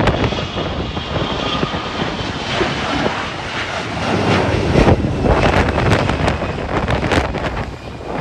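Airliner jet engines running with a steady rumble and a faint whine, buffeted by gusty wind on the microphone.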